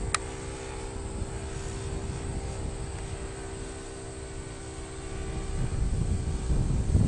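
Radio-controlled Cessna 182 model's O.S. 95 four-stroke glow engine droning steadily as the plane flies overhead. A brief click comes right at the start, and a low rumble grows louder near the end.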